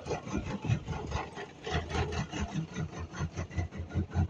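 Volkswagen Golf Mk1 engine coming to life. A low running sound sets in a little under two seconds in and settles into a fast, even pulsing at idle.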